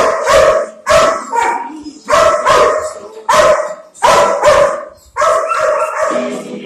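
Dogs in kennel runs barking loudly, bark after bark in bursts about once a second.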